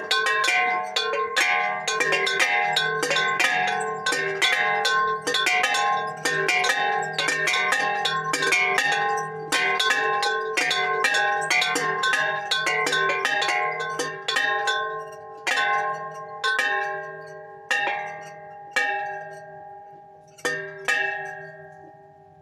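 Three small hanging bells, about 20 to 30 cm across and weighing 1 to 3.5 kg, rung quickly together in a clanging peal of several strokes a second. After about fifteen seconds the strokes thin out to roughly one a second, and the ringing fades away as the bells are rung down.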